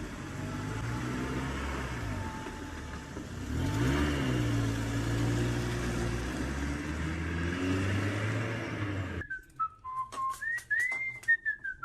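A motor running steadily, its pitch rising and falling briefly about four seconds in, that cuts off abruptly about nine seconds in. Whistled notes that glide up and down follow, with a few sharp clicks.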